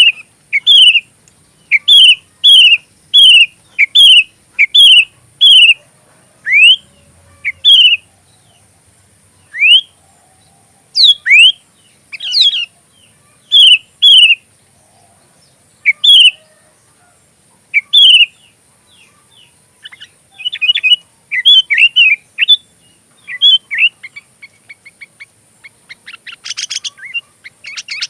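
Sooty-headed bulbul (kutilang) singing vigorously: a run of loud, short slurred whistles repeated about one and a half times a second, then rising upswept notes, a quicker jumble of chattering notes, and a rapid buzzy trill near the end.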